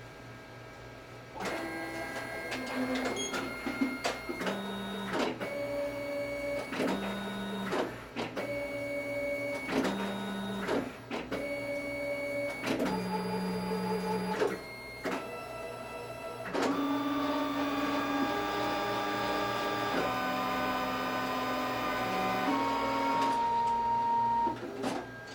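Zebra ZXP Series 8 retransfer card printer printing a single-sided card. Its motors whir in short stop-start runs at changing pitches starting about a second and a half in, then run in one longer steady whir through the last third, stopping just before the end.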